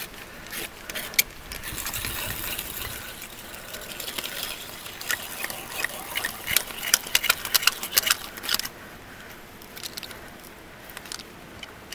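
Ice screw being twisted by hand into waterfall ice: an uneven run of crunching, scraping and clicking as the threads cut in and the hanger is cranked round, easing off about two-thirds of the way through to a few scattered clicks.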